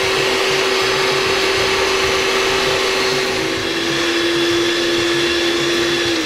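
Electric hand mixer running steadily, its twin beaters whipping cream cheese frosting in a glass bowl. The motor's tone drops slightly in pitch about three and a half seconds in, and starts to slow at the very end.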